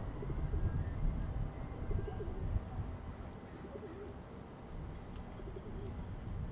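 A bird cooing in several short, low phrases over a steady low rumble of outdoor background noise.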